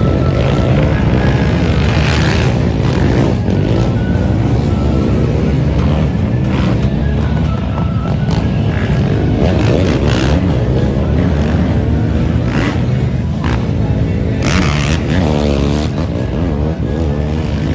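Racing quad engines revving hard as several ATVs climb and jump a dirt crest, their pitch rising and falling with the throttle, most plainly near the end. Music plays alongside the engines.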